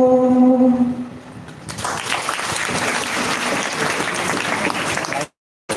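A man's sung note is held and fades out, then an audience applauds steadily for a few seconds. The applause cuts off suddenly near the end.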